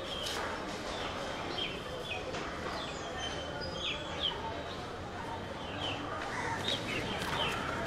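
Small birds chirping in short, scattered calls over a steady background of outdoor ambient noise.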